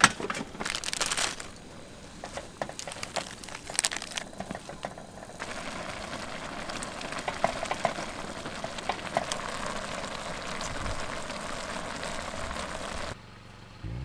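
Cooking on a portable gas stove: a few knocks and crinkles as the steel pot and noodle packets are handled, then from about five seconds in a steady hiss with light crackles and clicks as the pot of instant noodles boils and is stirred with chopsticks.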